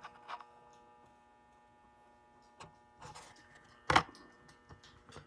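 A Hot Wheels blister card being handled, with faint plastic rustles and small clicks and one sharp plastic click about four seconds in, as the card is moved. A faint steady electrical hum sits underneath.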